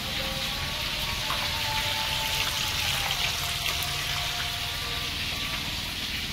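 Tongkol (mackerel tuna) frying in oil in a wok over a gas burner: a steady crackling sizzle.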